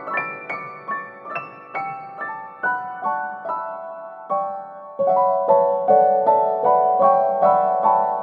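Background piano music: a steady run of single notes, a little over two a second, growing louder and fuller about five seconds in.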